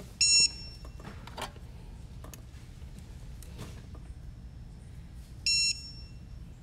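Two short electronic beeps about five seconds apart, each a single high steady tone, with a few light clicks of tools and small parts being handled between them.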